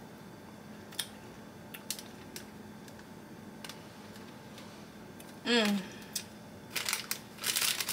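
Mouth sounds of someone eating a chili-coated lollipop: a few wet lip smacks, then a short hum of enjoyment, falling in pitch, about five and a half seconds in. Near the end come quick crackly smacking and crinkling clicks from the candy and its plastic bag.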